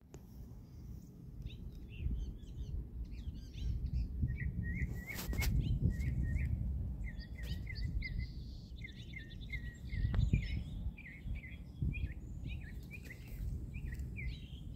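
Small birds chirping again and again in short high calls, over a low rumble, with two sharp clicks, one about five seconds in and one about ten seconds in.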